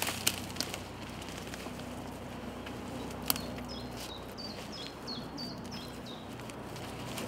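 A small songbird singing a run of short, high, downward-stepping notes, about three a second, for some three seconds midway. A few sharp clicks come before it.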